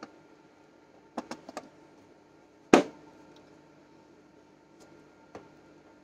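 Vernier caliper case being closed: a few light clicks as the caliper is settled in its fitted case, then a single sharp clap as the lid shuts about halfway through, with a small click near the end.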